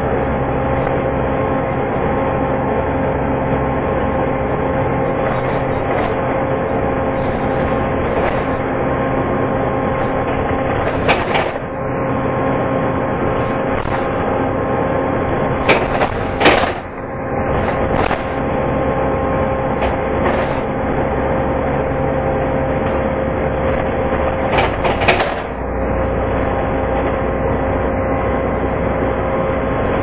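Inside a Volvo B7TL double-decker bus on the move: the engine runs with the steady whine of its cooling fan, the 'hoover' sound. A few knocks and rattles come about a third of the way in, around the middle, and again near the end.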